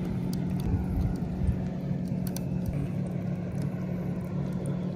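Steady low drone of a distant motorboat engine, with wind rumbling on the microphone.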